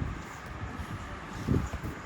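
Handling noise from a cardboard box being opened: rustling, with a low bump at the start and another about a second and a half in.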